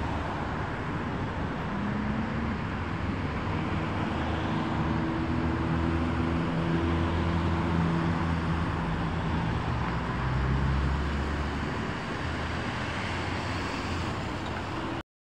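Steady road traffic noise: car engines and tyres at a busy junction, with a low engine hum that swells and fades as vehicles pass. It cuts off abruptly near the end.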